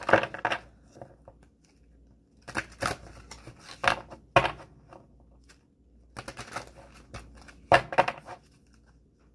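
An oracle card deck being shuffled by hand, the cards slapping and riffling against each other in three bursts of rapid clicks with short pauses between.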